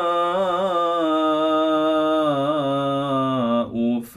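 A Quran reciter's voice in slow, melodic tartil, holding one long drawn-out vowel with small turns in pitch. This is the six-count prolonged madd wajib on "as-samā'u". It breaks off briefly near the end before the next word.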